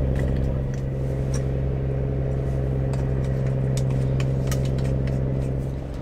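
Steady low drone of a boat engine passing on the water close by, with a few light clicks and taps over it.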